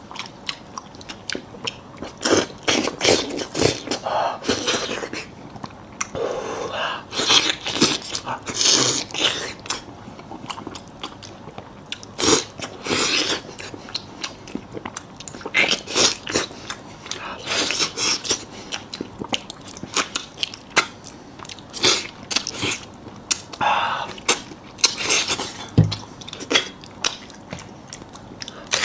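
Close-up mukbang eating sounds: someone biting and chewing meat, in irregular wet bursts and clicks.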